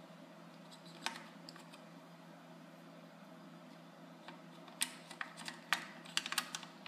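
Light clicks and taps of small tools being set into the slots of a plastic precision screwdriver case: one click about a second in, then a quick run of clicks near the end.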